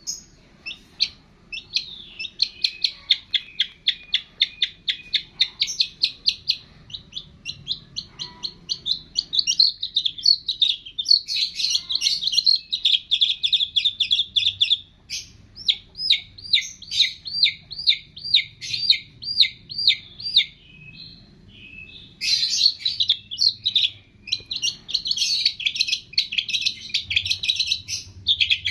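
Songbird singing a rapid series of sharp high chirps and trills, then a run of slower looping notes at about two a second, a short pause, and fast chattering again.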